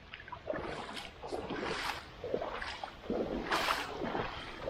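Legs wading through knee-deep floodwater: a series of sloshing, splashing swishes about once a second, the loudest about three and a half seconds in.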